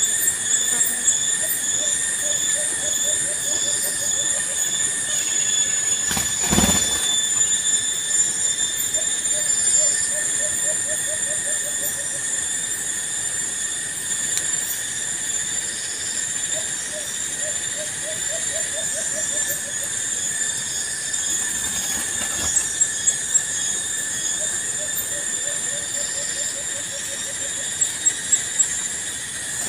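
Steady shrill drone of forest insects, several high tones holding throughout. A low call of rapid repeated notes comes in about every six or seven seconds, each lasting about two seconds, and a dull thump sounds about six seconds in.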